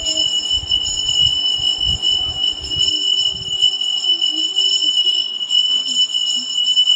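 A steady, high-pitched ringing tone, with low rumbling bumps that stop about three seconds in.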